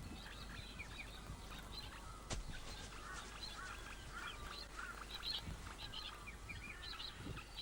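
Faint, scattered bird chirps and twitters over a low, even background hiss, with one brief click a little over two seconds in.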